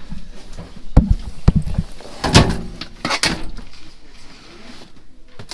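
Knocks and metallic rattling and scraping as luggage and the hinged berth lid over the metal under-berth storage box of a train compartment are handled: a few sharp knocks about a second in, then two louder scraping rattles.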